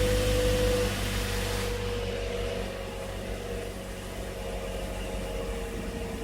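2011 Toyota Corolla's four-cylinder engine idling steadily just after a cold start, its sound easing down over the first few seconds as the revs settle.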